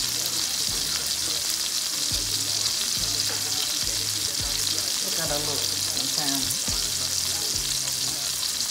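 Food frying in a hot pan, a steady sizzle, with the beat and bass of background hip-hop music thumping faintly underneath.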